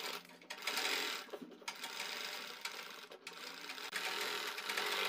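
Domestic sewing machine stitching through cloth, running in short spells with brief stops in between.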